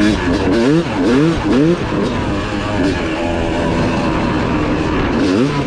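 Yamaha YZ250 two-stroke motocross engine revving up and down while riding. It makes a few quick rising and falling sweeps early, runs steadier through the middle, then sweeps again near the end.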